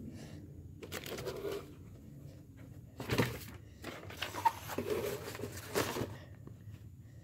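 Paper and packaging being handled and rustled, with a few short knocks.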